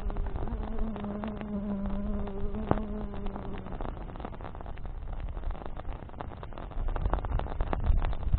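Wood campfire crackling and popping, with a flying insect buzzing close by for the first few seconds before the buzz stops. A low rumble builds near the end.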